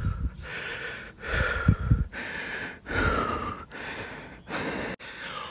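A cyclist breathing hard and fast while riding, in and out about once a second, with a few low thumps of breath or wind hitting the microphone.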